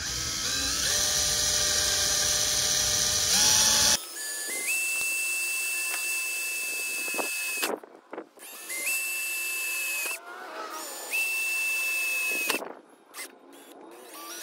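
Electric drill with a 1/8-inch bit drilling pilot holes through the porcelain-enamelled steel of a Weber kettle grill. It runs in several separate bursts, its whine rising in pitch as it spins up each time and then stopping.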